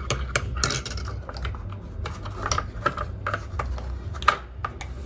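Metal teaspoon stirring coffee in a ceramic mug, clinking against the sides in quick, irregular taps.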